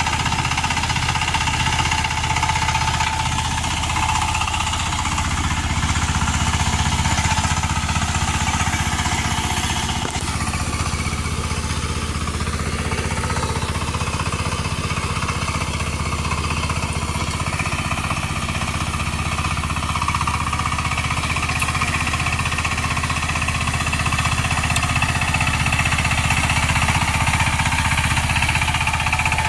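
Sifang 25 hp power tiller's single-cylinder diesel engine running steadily under load while its rotary tiller works a flooded paddy field.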